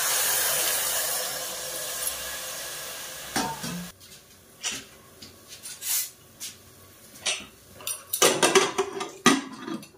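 Rice-washing water poured from a bowl into a hot pressure cooker of curry, a loud hiss that fades over about four seconds. Then a run of metal clinks and clanks as the pressure cooker's lid is handled and fitted on.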